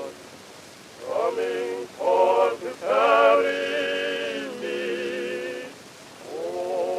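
Slow blues music: a held, slightly wavering melody line in short phrases, with brief pauses about a second in and near the end.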